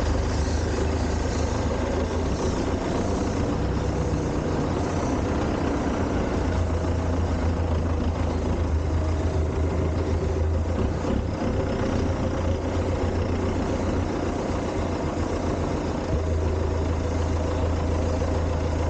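Front-loader tractor's diesel engine running steadily, a strong low drone, while the loader handles a wrapped silage bale.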